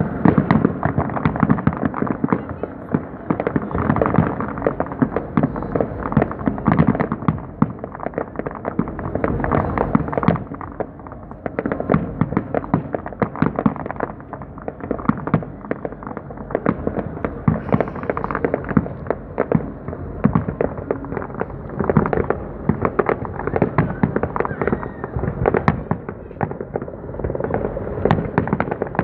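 A fireworks display going off in a rapid, continuous barrage of bangs and crackling. Many bursts a second, the volume swelling and easing every few seconds.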